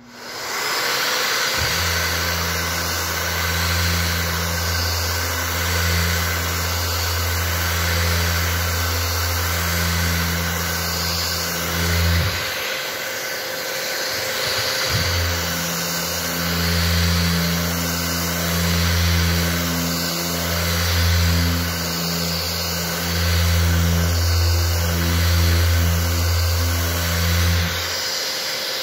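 Electric rectangular-pad orbital sander with a dust-extraction hose dry-sanding a car's painted panel: a steady low hum over a constant suction hiss. About halfway through the hum drops out for a couple of seconds while the pad is lifted off the paint, then resumes, and it stops near the end while the hiss goes on.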